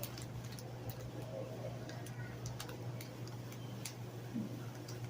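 Faint chewing of a crunchy puffed corn snack: irregular crisp clicks over a steady low hum.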